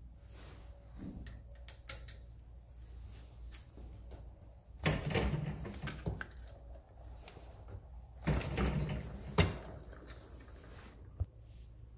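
A small RCBS single-stage reloading press being worked with a brass .308 Winchester case: light clicks of metal and brass, then two spells of the press's ram and linkage moving. The second spell ends in a sharp click about nine seconds in, and one more small click comes near the end.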